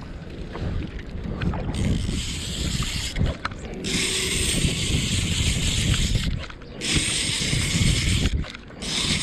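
Spinning reel cranked in spurts: a whirring that starts and stops sharply about four times, each spell lasting one to two seconds. Wind rumbles on the microphone underneath.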